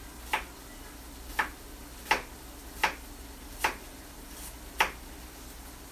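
Kitchen knife chopping onion on a cutting board: six sharp knocks of the blade hitting the board, about one a second.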